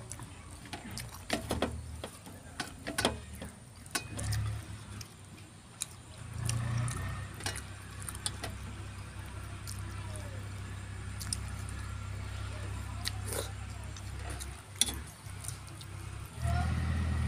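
Close-up eating sounds of rice and fish curry eaten by hand: sharp clicks of chewing and lip smacks, and fingers working rice on steel plates. A low motor-vehicle engine hum comes in about six seconds in and grows louder near the end.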